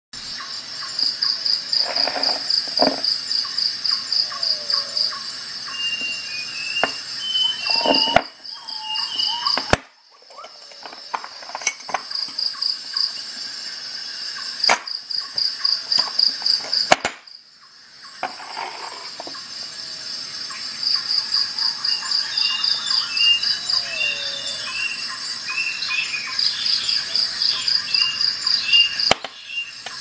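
Insects trilling in runs of a few seconds, a high pulsing trill, with short bird chirps over it; the sound breaks off abruptly several times, where the track is cut.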